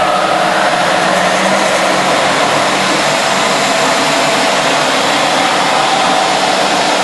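1959 Voest engine lathe running steadily in high gear, its variable speed pulley drive turning on newly fitted, cut-down belts: an even mechanical whirr with a faint hum.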